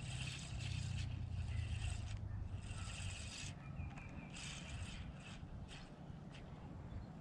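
Spinning reel being cranked in several short bursts of about a second each with brief pauses, its gears turning as a lure is retrieved; the bursts thin out after about five seconds.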